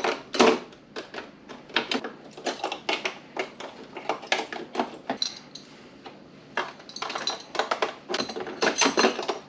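Metal musky lures, spinner blades and hooks, clinking and rattling as they are dropped one by one into the slots of a tackle box: a quick, irregular run of light metallic clicks and clatters.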